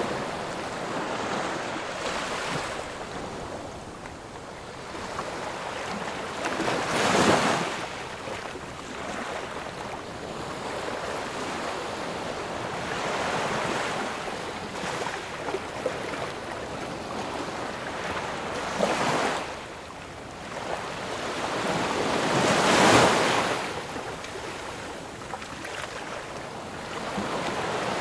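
Ocean waves breaking and washing on shore, a steady surf with swells that build and fall away, the loudest breaking about a quarter of the way in, again near two-thirds, and most strongly about four-fifths of the way through.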